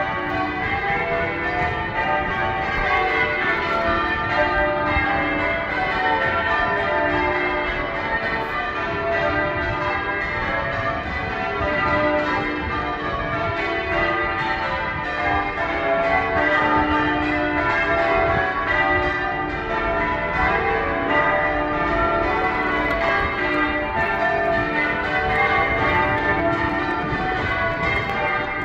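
Manchester Cathedral's church bells being rung in changes: an unbroken, rapid succession of bell strikes whose ringing tones overlap.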